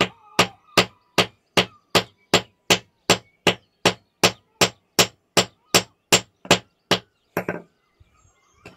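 Hammer repeatedly striking a fossil stone to crack it open: about twenty sharp knocks at an even pace, roughly two and a half a second, stopping about seven seconds in after two lighter taps.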